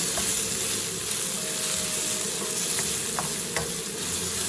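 Garlic, ginger and green chillies sizzling in hot oil in a pan as they are sautéed and stirred, a steady frying hiss with a few light clicks of the spoon against the pan.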